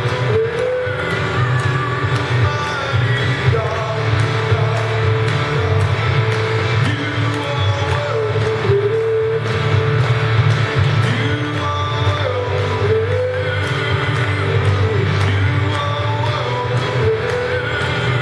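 Live church worship music: a band with a steady drumbeat and bass plays while a voice sings a gospel song.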